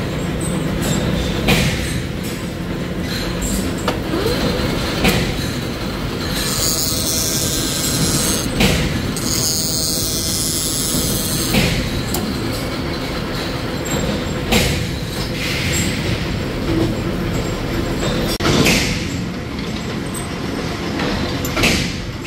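Metal lathe and workshop machinery running steadily, with sharp metal clanks every few seconds as steel parts and tools are handled, and a harsh high hiss lasting about five seconds midway.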